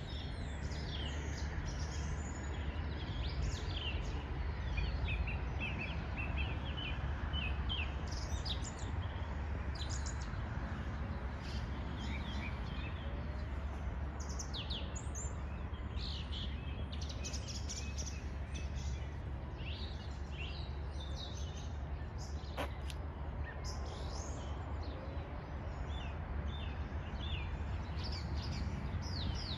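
Several small birds chirping and singing in short, repeated calls, over a steady low rumble.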